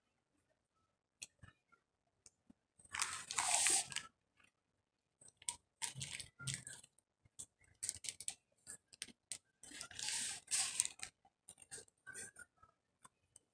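Dry cornstarch being eaten straight from the box: scattered crunchy chewing clicks, with two longer rustling bursts, about three seconds in and again about ten seconds in, as the box's inner bag is handled and tipped up.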